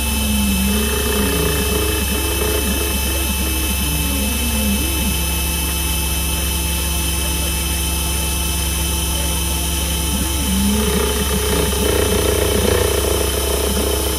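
CNC milling machine cutting a connecting rod: its axis motors whine in tones that glide up and down as the table follows the toolpath. The tones hold level for about five seconds in the middle, over a constant hum.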